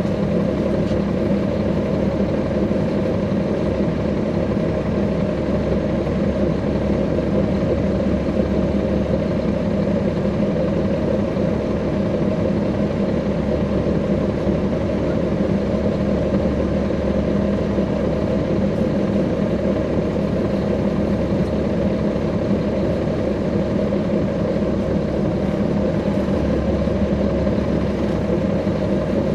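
Caterpillar C13 ACERT diesel engine of a 2009 NABI 416.15 (40-SFW) transit bus running, heard from on board the bus: a loud, steady low drone with no revving.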